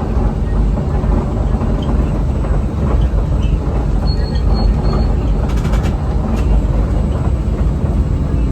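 Disneyland Mark VII monorail running along its beam, heard from inside the front cabin: a steady, loud rumble of the rubber-tyred running gear and drive. Three short, faint high beeps sound about four seconds in.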